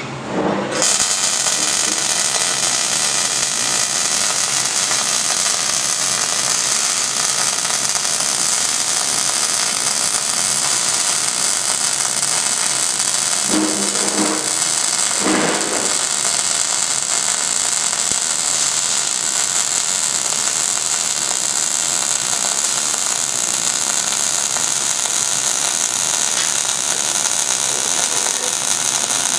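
MIG welding arc running on 3/16-inch steel plate: a steady, bright hiss that strikes up about a second in and holds unbroken through one long bead.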